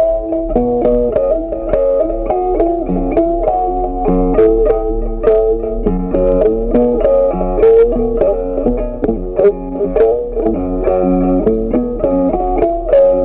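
Background music: a guitar playing a quick melody of plucked notes.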